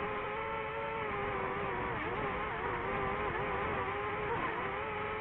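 DJI FPV drone's motors and propellers whirring steadily in flight, the whine wavering slightly in pitch as the throttle changes.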